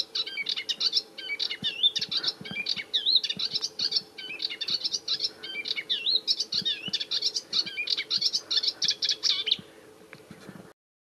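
Melodious warbler singing: a fast, babbling warble of quick high notes in long phrases with short breaks, stopping near the end.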